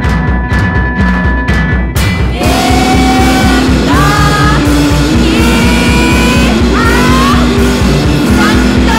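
Bass-less noise-rock band playing, guitar and drums: a fast, even low pulse under held and sliding high notes, with the sound growing denser about two seconds in.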